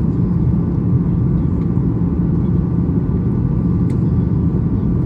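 Steady cabin noise inside a Boeing 737-800 in flight, heard from a rear window seat: its CFM56-7B turbofans and the airflow make a constant low rumble, with faint steady engine tones above it.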